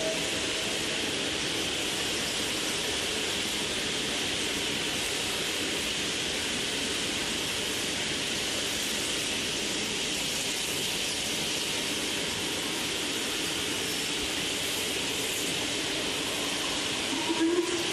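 Steady hiss of steam from two standing steam locomotives, with no exhaust beats. Near the end there is a brief whistle.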